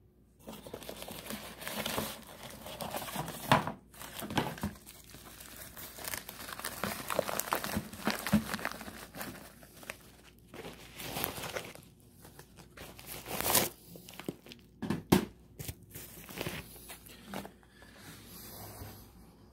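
Plastic packaging crinkling and rustling as it is handled and pulled open, with a padded plastic wrap being removed from a radio, punctuated by a few sharper, louder crackles or rips.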